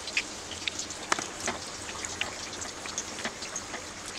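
Flour-dough pizza parcels deep-frying in hot oil: a steady crackling sizzle of many small pops, with one sharper pop about a second in.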